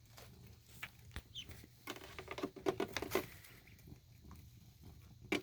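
Ducklings peeping: many short, quick notes, busiest in the middle.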